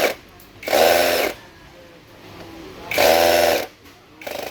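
Power drill or electric screwdriver run in short bursts of about half a second, three times, steady in pitch through each burst, as it drives screws while a device is taken apart.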